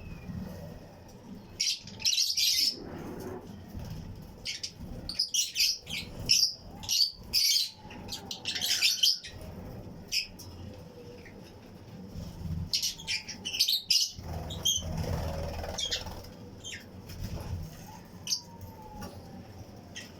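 Colony of Fischer's and lutino lovebirds giving many short, sharp, high-pitched chirps in quick, irregular bursts, with some wing flapping.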